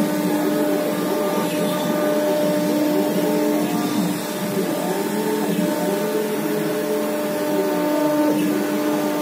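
Single-head 1325 CNC router carving a white board: the 5.5 kW spindle runs with a steady whine. Fainter motor tones rise and fall in pitch as the head moves along its cutting path.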